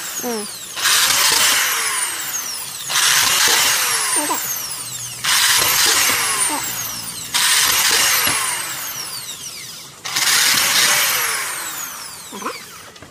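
Corded Black+Decker electric drill run in five short trigger pulls about two seconds apart, each spinning up sharply and then winding down.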